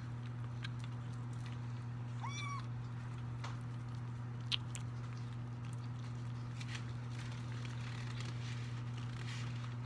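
A kitten gives one short meow, rising then held, about two seconds in. Scattered light clicks and taps follow, with one sharper click near the middle, all over a steady low hum.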